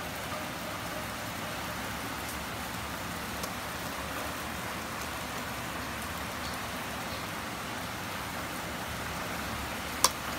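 Steady background hiss with a few faint ticks, and one sharp click near the end.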